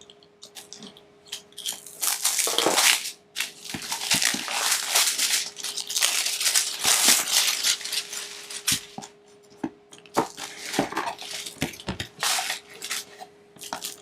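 A product box being opened and its packaging handled: irregular bursts of rustling and crinkling, with a few sharp clicks and knocks.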